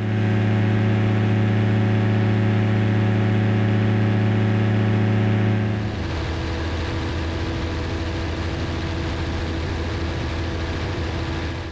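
Rebuilt Rotax aircraft engine running steadily in flight. About halfway through, its note drops lower and gets quieter.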